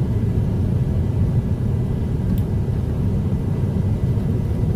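Steady low rumble of a semi truck's diesel engine running, heard from inside the cab, with one faint click about two and a half seconds in.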